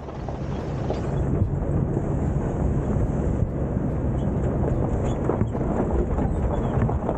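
A 4x4 driving a rough dirt road, heard through a camera microphone mounted outside the vehicle: steady wind rush on the microphone over tyre and road noise, with scattered short knocks from the bumpy track.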